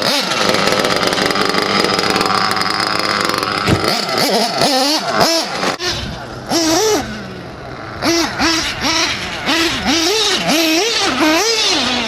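Radio-controlled off-road cars racing by, their motors revving up and down in quick repeated surges over wind noise on the microphone. The revving takes over about four seconds in.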